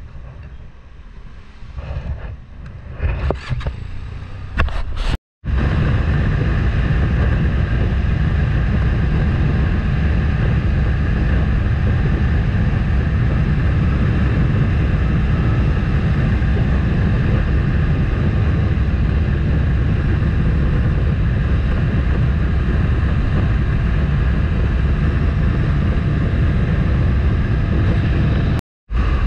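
Motorcycle running at a steady cruising speed, its engine drone mixed with heavy wind rush on the microphone. The first few seconds are quieter and uneven, then the sound drops out abruptly. It returns as a steady ride and breaks off once more for a moment near the end.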